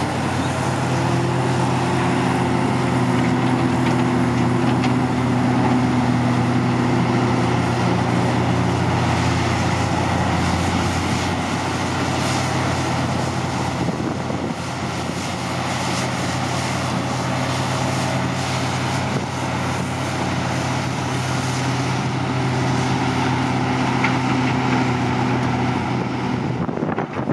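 Heavy diesel engines of a Hitachi Zaxis 520 hydraulic excavator at work and a Komatsu HM400 articulated dump truck standing by for loading, running steadily. The engine note shifts about ten seconds in.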